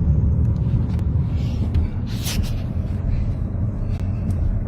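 Storm noise: a heavy, constant rumble of wind buffeting the microphone, with scattered sharp impacts striking throughout and a louder hissing gust about two seconds in.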